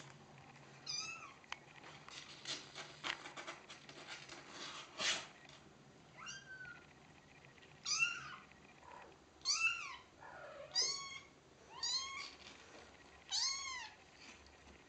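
Four-week-old kitten mewing repeatedly, about seven high, thin mews that each rise and then fall in pitch, coming more often in the second half. Early on, short scratching and rustling as it scrambles on the cardboard box and blanket.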